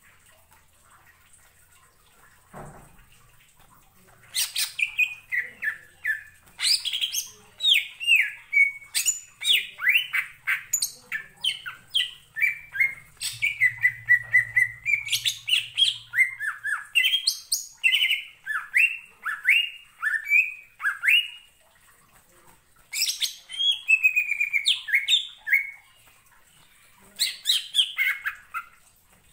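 Greater green leafbird (cucak ijo) singing in full voice ('gacor'): fast runs of sharp, downward-sweeping whistled notes in a long burst starting about four seconds in, then two shorter bursts after a brief pause near the end.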